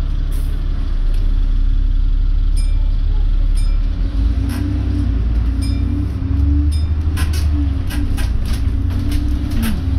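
London double-decker bus driving along, heard from inside the upper deck: a low engine rumble throughout, strengthening about four seconds in as a wavering whine joins it. Interior panels and fittings rattle and click repeatedly over the second half.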